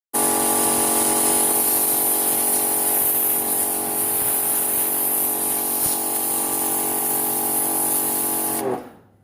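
Himax HX-500i electric pressure washer running, with a steady motor hum under the hiss of its high-pressure water spray. Near the end it is switched off and the motor's pitch falls as it winds down.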